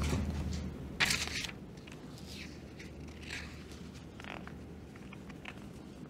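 Handling noise at a lectern: a short, louder rustle about a second in, then faint scattered rustles and scrapes.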